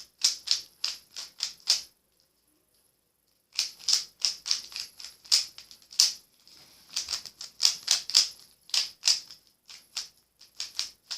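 3x3 Rubik's cube being turned by hand during a solve: quick runs of plastic clicks as the layers snap round, with a pause of about a second and a half about two seconds in.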